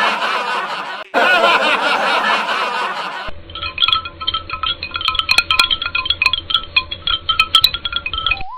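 Edited-in cartoon sound effects: a wavering, warbling sound for about three seconds, then a tinkling chime jingle of repeated bell-like notes. A rising whistle glide begins right at the end.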